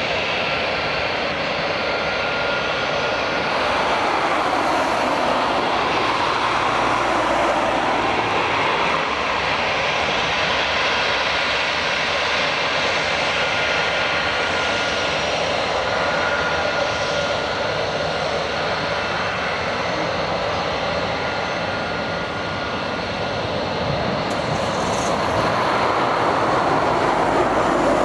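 The two CFM56-5B turbofan engines of an Airbus A321 run at taxi power: a steady jet rumble with a faint high whine. The sound grows a little louder near the end as the jet turns past.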